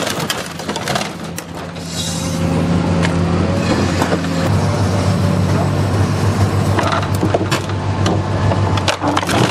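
Car dismantling machine's hydraulic shear tearing a car body, with repeated crunching and scraping of sheet metal over a steady low hum that shifts about halfway through. Background music may be mixed in.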